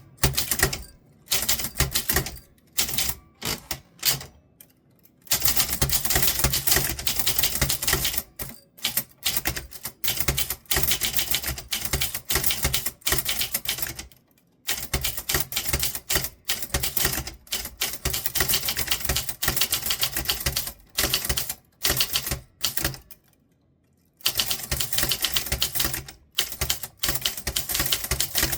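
Typewriter being typed on: rapid runs of key strikes clacking, broken every few seconds by short pauses of a second or two.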